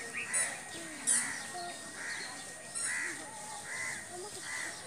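A crow cawing repeatedly, about five caws roughly a second apart.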